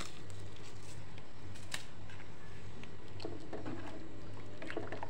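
A steady low hum with a few faint soft clicks.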